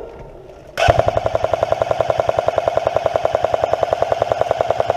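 Airsoft light machine gun firing one long full-auto burst starting about a second in: a fast, even rattle of shots over a steady gearbox whine.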